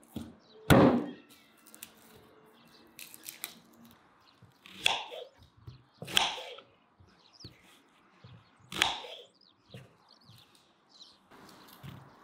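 A kitchen knife chopping onto a wooden cutting board: a few separate chops, several seconds apart, the loudest a heavy thunk about a second in.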